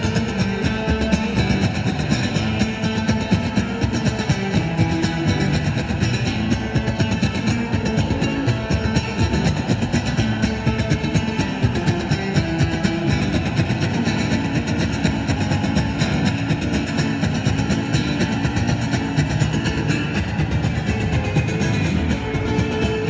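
Street buskers playing two acoustic guitars amplified through small loudspeakers, music with a steady beat.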